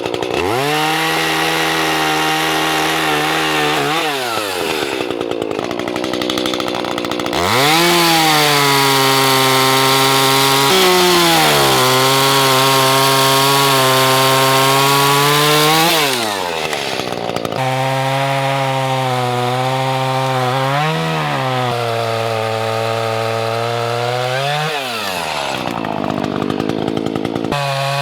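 Chainsaw revving up and cutting mesquite branches. The engine climbs to full speed and sags slightly under load through one long, louder cut in the middle, then drops back toward idle and revs up again for shorter cuts.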